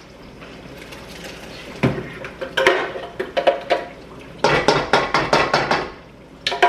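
Spoon knocking and scraping inside an upturned blender jar over a stainless steel pot, working out the last of the blended onion-and-garlic paste. Sharp clinks come in a few quick runs, the busiest about two-thirds of the way through.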